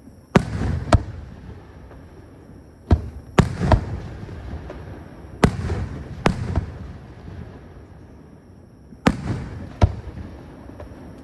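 Aerial fireworks bursting: about nine sharp bangs in four clusters of two or three, each bang trailing off in a rumbling echo.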